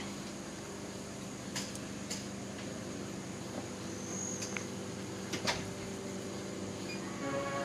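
Steady low hum with a few short, sharp clicks scattered through it; music comes in near the end.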